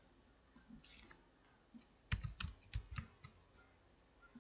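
Faint typing on a computer keyboard: a few lone keystrokes, then a quick run of clicks about two seconds in, some with a dull thump, as a short word is typed.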